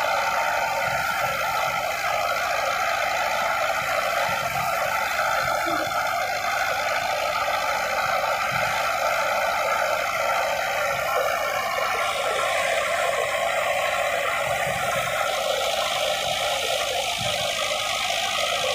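Steady running noise of a wheat thresher driven by a Massey Ferguson 265 tractor's diesel engine, working under load as wheat straw is fed in.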